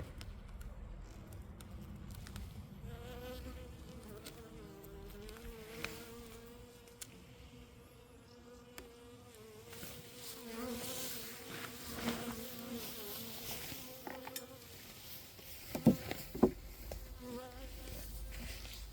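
Honeybees buzzing around an open hive, one flying close with a wavering hum that comes and goes. Two sharp knocks about three quarters of the way through.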